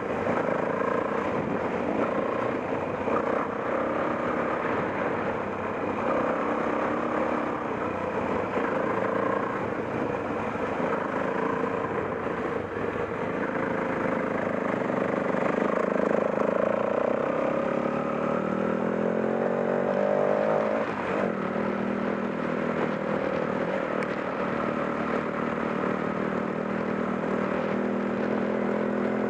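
Off-road motorcycle engine running, its revs rising and falling as it is ridden.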